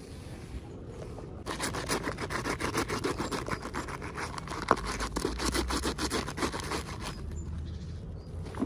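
Toy packaging being opened by hand: rapid scratchy crinkling and rubbing for about five seconds, with one sharp click partway through.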